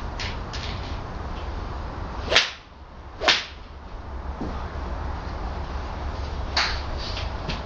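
Pitching wedge swung through punch shots: two sharp swishes about a second apart, then a fainter one near the end.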